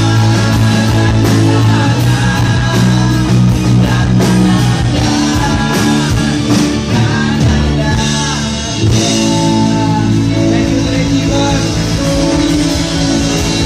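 Live pop-rock band playing: strummed acoustic guitar, electric guitar, bass and drums, with male voices singing lead and harmony.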